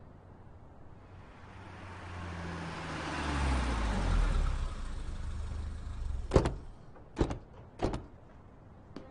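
A car drives up, its engine and tyre noise swelling for a few seconds and then easing as it slows. Then come three sharp knocks, less than a second apart.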